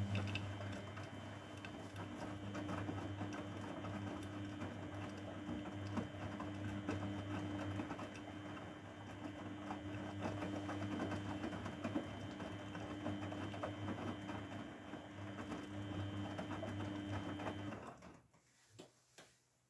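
Grundig Mini 14 washing machine humming steadily with water rushing and crackling through it, an electric pump or valve running during a rinse cycle. It stops suddenly about 18 seconds in, followed by a few faint clicks.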